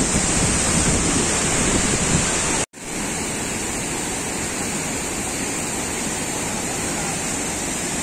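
Steady roar of a large waterfall. About a third of the way in, the sound drops out for an instant, and then water rushing over rock slabs at the head of the falls carries on, a little quieter and with less low rumble.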